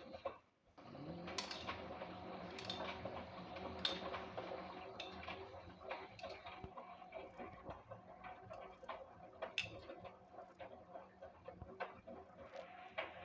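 LG WD-1054FB front-loading washing machine: after a brief pause, the drum motor starts about a second in with a rising whine that settles into a steady hum. Irregular clicks and knocks come from the tumbling drum.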